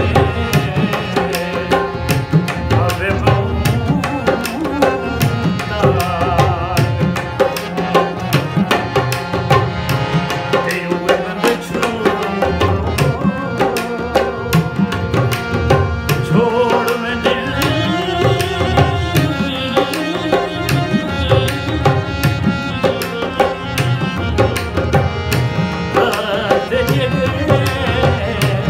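Man singing a slow, ornamented melody in Raag Bhairavi, with tabla playing a steady rhythm under the voice.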